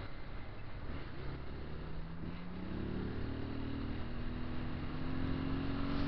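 Motorcycle engine pulling under way, its pitch rising slowly as the bike speeds up, over wind and road noise.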